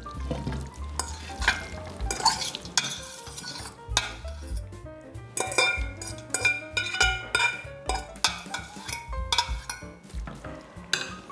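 Repeated clinks and scrapes of metal on metal as cooked fettuccine is tipped and worked out of a stainless steel pot into a pan of cream sauce.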